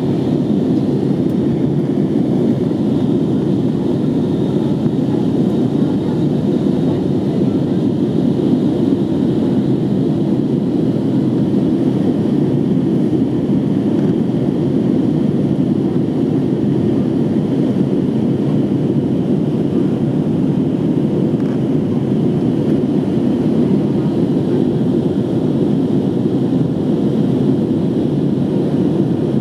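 Steady engine and airflow noise of a JetBlue Airbus A321 in flight, heard inside the passenger cabin. It is a constant low rush that does not change, with a faint high whine above it.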